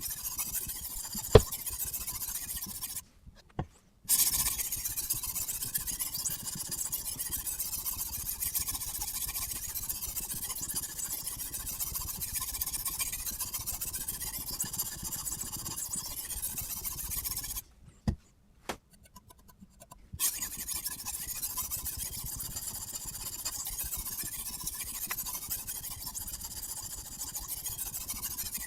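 Sharpening stone on a Kosim guided-angle sharpener rubbing along a kitchen knife's steel edge: a steady gritty hiss that stops twice, briefly and then for a couple of seconds, with a sharp click about a second in and another midway.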